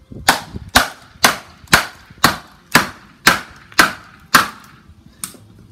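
A split of firewood used as a baton striking a plastic felling wedge about twice a second: nine sharp blows and a lighter tenth. The blows drive the wedge into the crack of a knotty red oak log to open the split and free the axe stuck in it.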